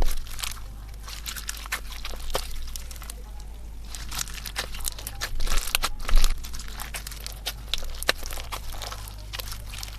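Slime being squeezed and worked by hand, giving many quick, irregular crackles and pops.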